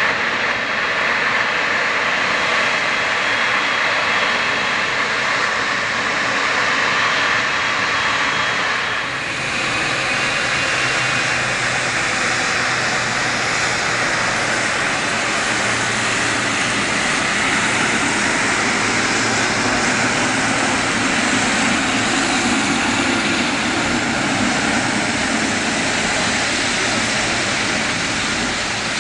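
Boeing 777 freighter's GE90 turbofan engines running at taxi power as the jet rolls past close by: a steady jet noise with a high whine in the first part, which dips briefly and gives way to a lower rumble as the aircraft turns past.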